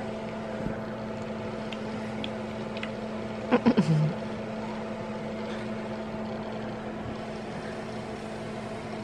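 A steady hum with a constant low tone, heard muffled because a finger is covering the phone's microphone. About three and a half seconds in, a short voice sound falls in pitch.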